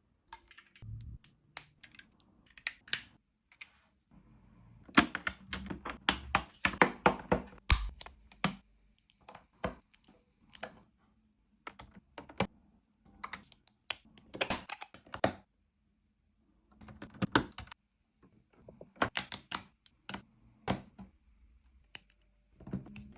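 Plastic LEGO pieces clicking and rattling in irregular bursts as they are handled and pressed together, with short quiet gaps between bursts.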